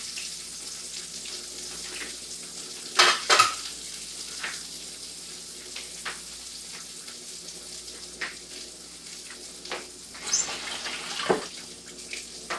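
Sausages frying in hot oil in a frying pan, sizzling steadily. A few sharp knocks break in, the loudest pair about three seconds in and more near the end.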